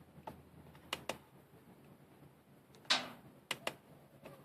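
A handful of light, scattered clicks and taps, with one louder knock about three seconds in, over a faint steady low hum.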